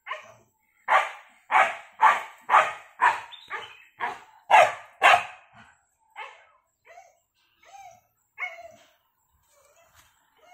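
A dog barking over and over, about two barks a second, then a few fainter, shorter barks in the second half.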